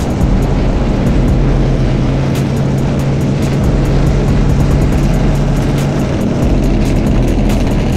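Dirt bike and ATV engines running steadily at riding speed, mixed with the rush of wind over the microphone.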